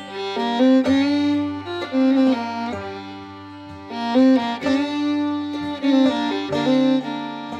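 Instrumental outro music: a melody of held notes stepping from pitch to pitch.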